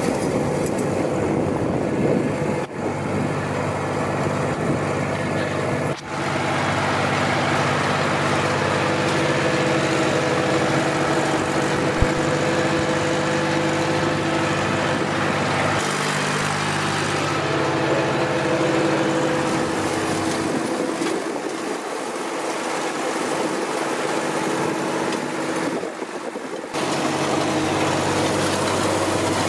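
Ursus C-360 3P tractor's Perkins three-cylinder diesel running steadily under load while pulling a seed drill. The tone shifts abruptly several times.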